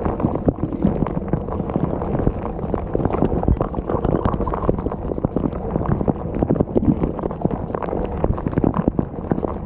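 Running dishwasher: water churning and splashing inside the tub, with a dense, irregular stream of knocks.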